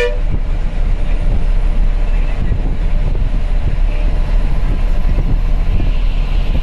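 Steady engine and road noise heard from inside the cabin of a moving non-AC bus, a continuous low rumble. A horn toot cuts off right at the start.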